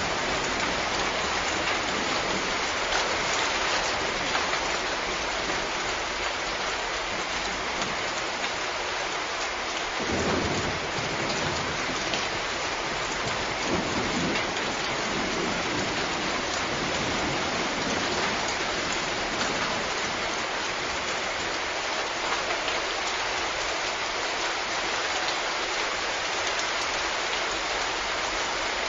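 Steady rain falling, with low rumbles of distant thunder about ten seconds in and again around fourteen seconds.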